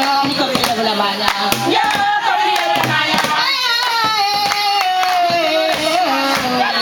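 Women singing a song together to rhythmic hand clapping.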